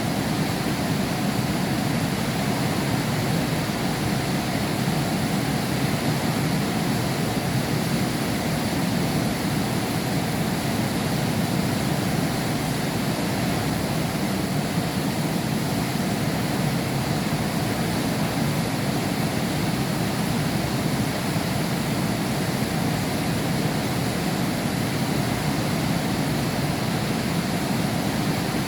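Heavy rain falling, heard through window glass: a steady, even rush with no breaks.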